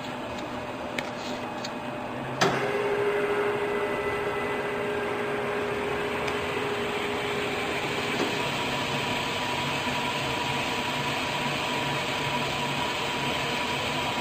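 Hardinge HLV toolroom lathe switched on with a sharp click about two and a half seconds in, then running steadily with its spindle and drive whining; the whine changes to a higher pitch about eight seconds in.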